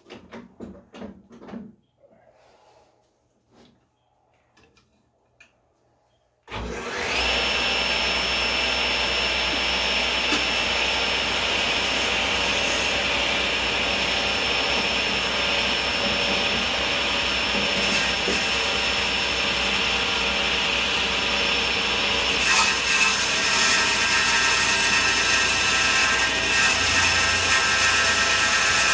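A few light knocks, then about six seconds in a table saw motor starts, its whine rising quickly to a steady pitch. It runs on with the blade shaving a turning teak post into a dowel, a steady rough sawing noise under the whine.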